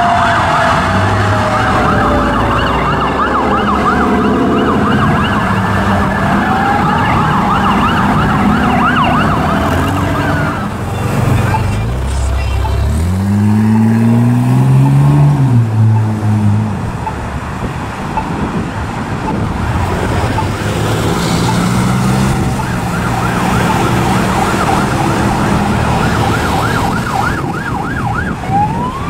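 Emergency vehicle sirens, electronic wail and fast yelp, sounding over each other for the first ten seconds and again in the last third. About halfway through, a deep pitched tone climbs and then falls back over a few seconds; it is the loudest moment.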